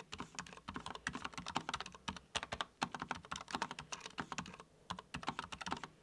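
Typing a sentence on a Cherry KC 200 MX mechanical keyboard with Cherry MX2A switches: a quick run of quiet key clicks, several a second, with a short pause about two-thirds of the way through.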